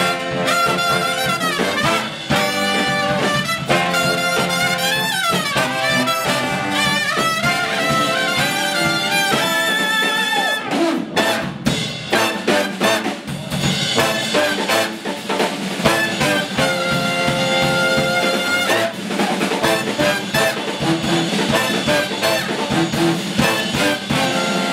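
Live brass band playing an upbeat tune: trumpet, trombone, baritone and alto saxophones in ensemble, with a drum kit keeping the beat.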